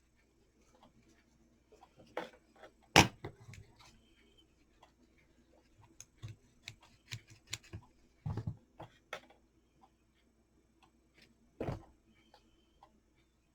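Scattered taps, clicks and small knocks of objects being handled on a work surface, irregular, with one sharp knock about a quarter of the way in and a few more thuds later.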